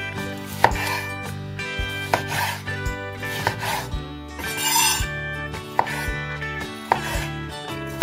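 Chef's knife slicing bell peppers on a bamboo cutting board: the blade cuts through the flesh and knocks on the board about once a second. Soft background music plays throughout.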